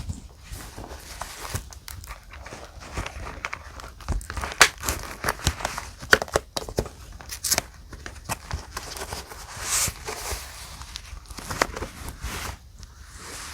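Paper rustling and crinkling with irregular sharp taps and clicks as die-cut paper pieces and a journal are handled, busiest in the middle.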